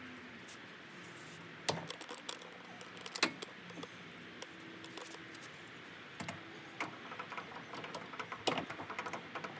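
Scattered metallic clicks, clinks and knocks as a coilover shock is handled and fitted into a car's rear suspension, with the sharpest knock about three seconds in and a run of small ticks near the end.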